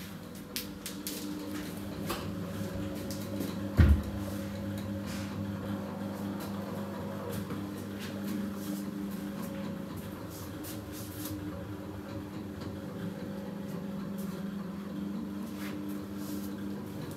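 A steady low mechanical hum in a small room, with scattered light clicks and knocks and one sharp thump about four seconds in.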